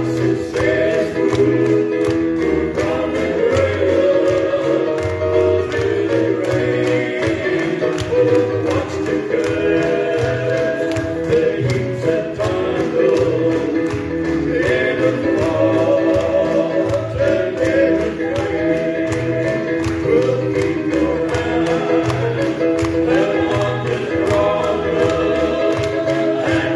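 Gospel trio of one woman and two men singing in harmony into microphones, with electronic keyboard accompaniment over bass and a steady beat.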